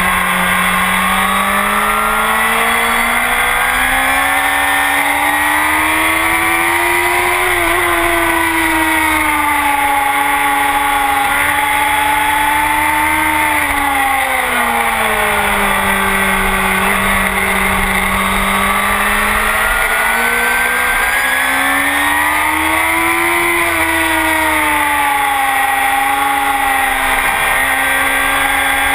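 Honda CBR1000RR's inline-four engine with a full Akrapovic exhaust, heard close up from a tail-mounted camera at track speed, over a steady rush of wind. The engine note climbs for the first several seconds, sinks to its lowest around the middle, climbs again to a peak about three-quarters of the way in, then settles a little lower near the end.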